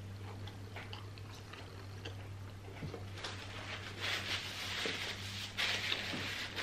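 Soft mouth chewing sounds of fried chicken, then a paper napkin rustling and crumpling from about three seconds in as hands and mouth are wiped, over a steady low hum.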